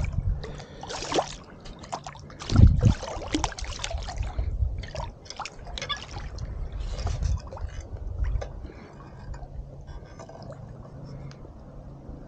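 Irregular small splashes and sloshing as a hooked white bass flaps at the water's surface while it is held and unhooked by hand, with brief handling knocks; the loudest splash comes about two and a half seconds in. A steady low rumble runs underneath.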